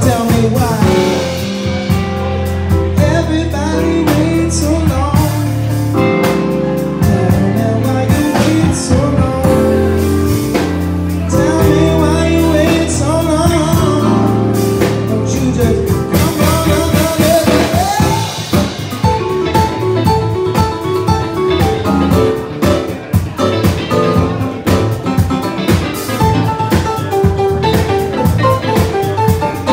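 Live band playing a song in a small room, with drum kit and guitar under a singer's voice; about two-thirds of the way through, the singing gives way to an instrumental passage of short repeated notes over the drum beat.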